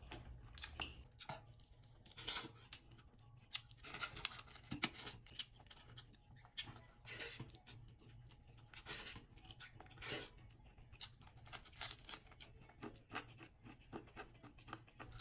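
Faint, irregular eating sounds from someone eating curry and rice by hand: short wet mouth and finger noises at uneven intervals.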